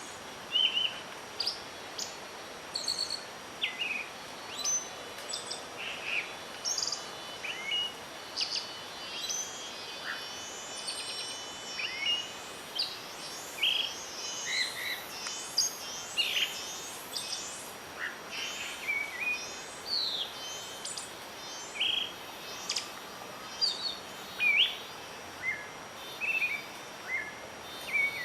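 Several wild birds chirping and singing in many short, overlapping calls, some sliding up or down in pitch, over a steady background of wind.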